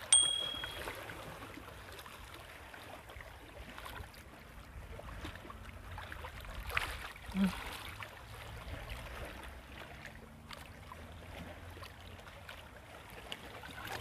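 A short bell-like ding at the very start, then faint water lapping along the shore over a low steady rumble, with a few soft clicks.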